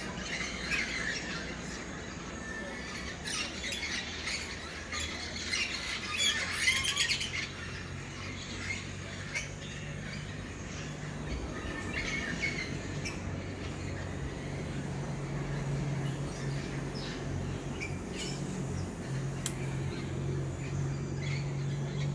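Birds calling, chirping and squawking, busiest in the first seven seconds or so. From about eleven seconds in, a low steady motor hum comes in and grows a little louder under the thinning calls.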